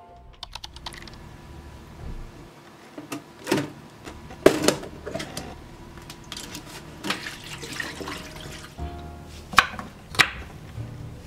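Kitchen handling sounds: cut potato pieces in water are moved about in a plastic container at a sink, with watery splashes and knocks. Near the end come two sharp strokes of a knife cutting through potato onto a wooden board. Soft background music returns near the end.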